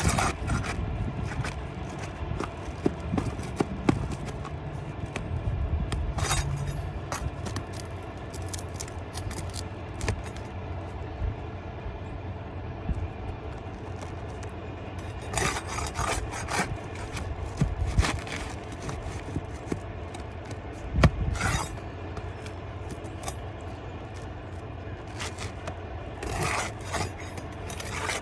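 Scraping and rubbing with scattered sharp knocks from tools working under roof shingles, prying them up to break the adhesive seal and free the nails.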